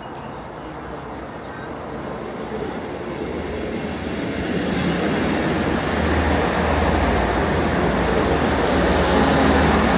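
Diesel passenger train pulling into the station platform, its low engine drone and rail rumble growing steadily louder as it approaches.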